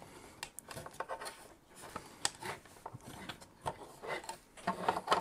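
Faint scattered clicks, taps and rubbing from hands handling the fan shroud and fan cable of an MLLSE Radeon RX580 graphics card as it is fitted back together.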